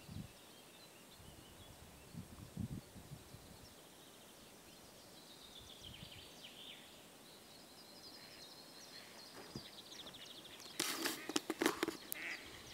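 Faint songbirds singing and trilling in a quiet pine forest, with a short burst of rustling noise near the end.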